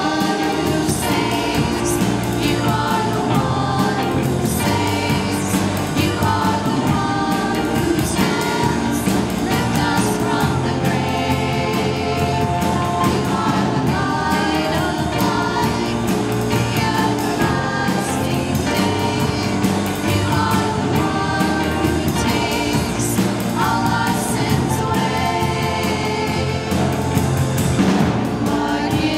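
A group of voices sings a worship song chorus together over steady band accompaniment, with no break.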